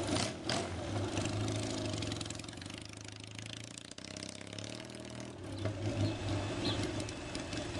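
Yamaha XS650 parallel-twin motorcycle engine running as the bike pulls away and accelerates down the street; the engine sound eases off in the middle and swells again near the end.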